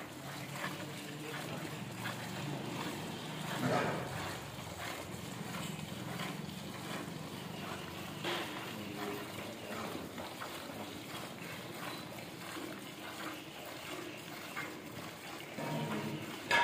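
Milk squirting into plastic buckets as a cow is milked by hand from both sides, a steady run of short squirts.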